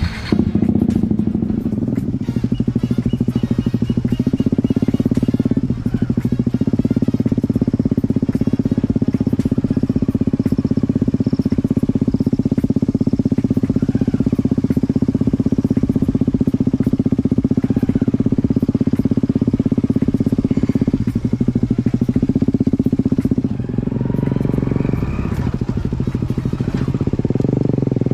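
Motorcycle engine running steadily at cruising speed while riding, dropping briefly in level a few times along the way.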